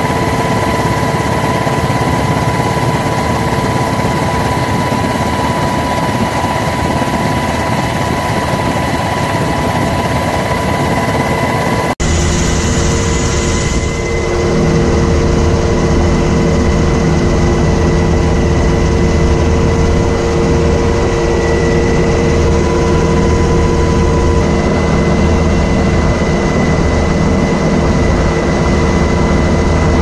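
Steady aircraft engine drone with constant whining tones, heard from on board in flight. About twelve seconds in it changes abruptly to a deeper, heavier hum with new steady whines, heard through a helicopter's open door.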